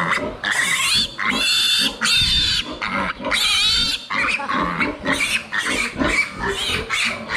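Piglet squealing in distress while restrained and handled after an injection: a series of long, shrill squeals that turn into shorter, quicker squeals about halfway through.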